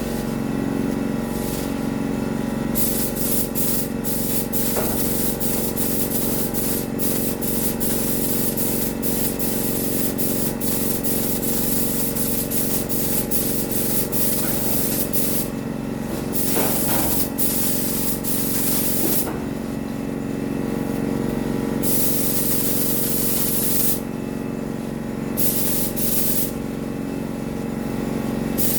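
Paint spray gun hissing in long passes, stopping and starting as the trigger is released and pulled, with a few short breaks in the second half. A motor hums steadily underneath.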